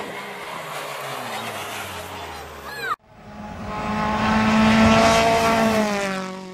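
Renault Clio Cup race car engine easing off, its pitch falling, with a short rising squeal just before the sound cuts off suddenly about three seconds in. Then a louder, steady sound of many tones swells up, peaks and fades away.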